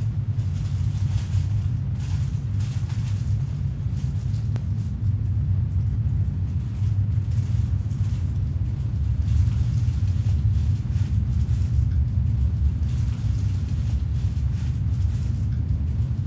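Steady low rumbling drone, with soft, intermittent rustling of a hamburger's paper wrapper being handled.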